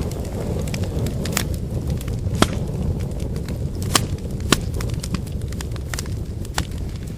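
Firewood fire burning: a steady low rumble of flames with scattered sharp crackles and pops from the burning wood, the loudest pops about two and a half, four and four and a half seconds in.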